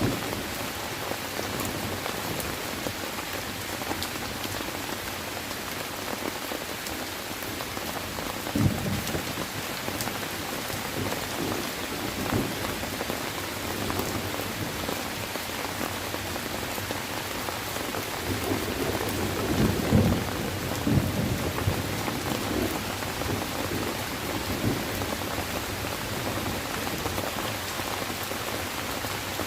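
Steady heavy rain hissing down, with low rolls of thunder breaking in several times, the longest and loudest about two-thirds of the way through.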